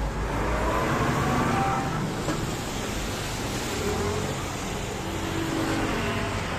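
Road traffic passing on a rain-wet street: a steady hiss of tyres and engine noise that swells about a second in and again near the end.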